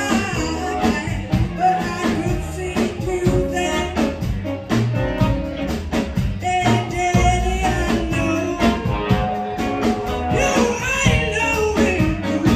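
Live blues band playing a shuffle: harmonica cupped to a vocal microphone over electric guitar, upright bass and drums.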